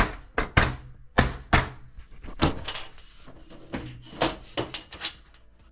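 A run of a dozen or more sharp clicks and knocks, irregularly spaced, as the metal and plastic cover and trunking of a three-phase distribution board are handled.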